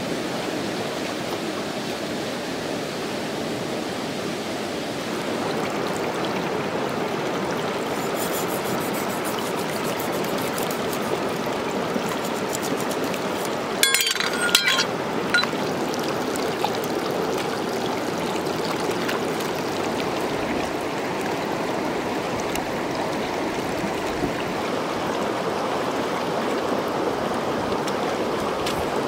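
Shallow rocky stream running steadily. A short cluster of sharp clicks and splashes comes about halfway through.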